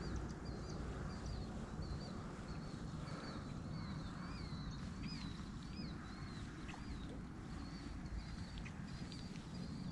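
A small bird singing a long series of short, high chirping notes, about two a second, over a steady low rumble.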